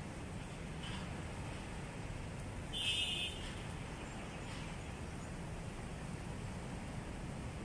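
Steady low outdoor rumble, with a brief high bird chirp about three seconds in.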